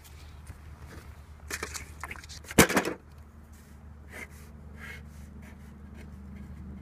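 Pencil writing on paper on a clipboard, faint short scratching strokes, preceded about two and a half seconds in by a brief loud bump of handling noise.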